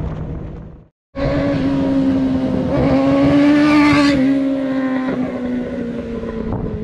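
Kawasaki Ninja 600 sport bike passing at high revs: the engine note climbs and is loudest about four seconds in, then its pitch drops and keeps falling as it moves away. An earlier engine sound fades out in the first second before an abrupt cut.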